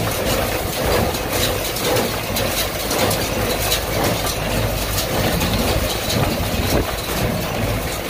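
Tractor engine running steadily under load, pulling a Massey Ferguson 124 square baler. The baler's knocks come through the engine rumble every second or so.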